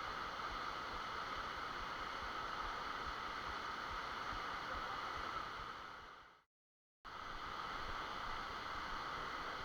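Steady rushing of a waterfall close by. It fades out about six seconds in, goes fully silent for about half a second, then comes back.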